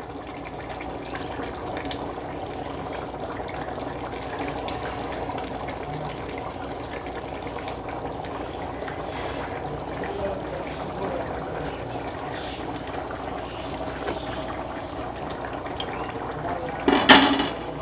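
Pot of biryani rice cooking in its spiced water, bubbling at the boil with a steady hiss, while a ladle stirs through it. A short, louder sound comes near the end.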